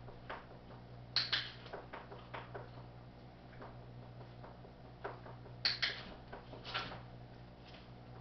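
Handheld dog-training clicker snapping in quick press-and-release pairs, about a second in and again around five and a half seconds in, with one more click shortly after. Each click marks the dog staying calm while a treat is offered.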